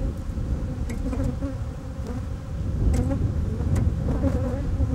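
Honeybees buzzing in a steady hum on an opened brood frame of the hive, over a low rumble underneath.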